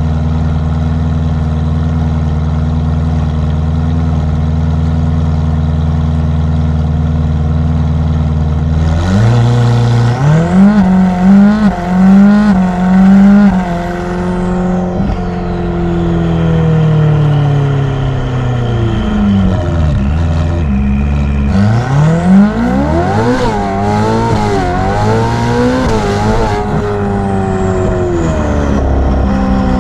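Ferrari F8's twin-turbo V8 idling steadily, then revved in quick blips about nine seconds in and again past the twenty-second mark, the revs sinking slowly between the two bursts and settling back toward idle near the end. A high turbo whistle falls in pitch as the revs drop.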